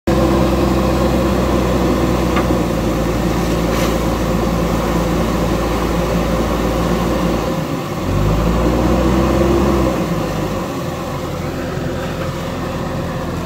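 JCB 3DX backhoe loader's diesel engine running as the machine drives through shallow water, with water splashing off the wheels and pouring from the raised front bucket. The engine revs up about eight seconds in and eases back down about two seconds later.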